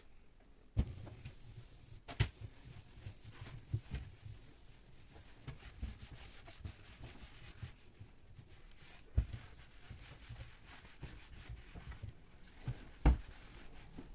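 Objects being handled and set down: scattered knocks and thumps with rubbing and shuffling in between, one knock about a second in and the loudest near the end.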